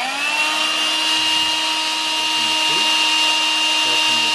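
Vacuum cleaner motor finishing its spin-up, its whine rising for the first half second and then settling into a steady run.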